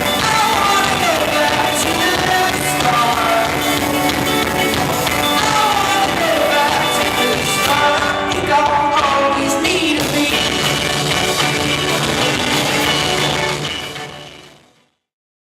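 Rock song with a sung vocal line over guitars and drums, fading out to silence near the end.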